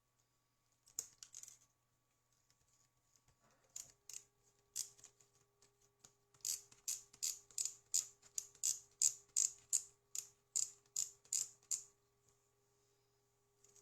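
A small mechanism clicking: a few scattered clicks, then a regular run of sharp clicks, about three a second, for several seconds, stopping near the end.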